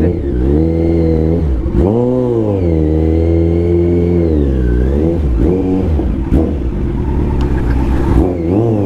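Kawasaki Z900's inline-four engine running as the bike is ridden, the revs climbing sharply about two seconds in, holding, then dropping near five seconds, with quick small rises and falls near the end.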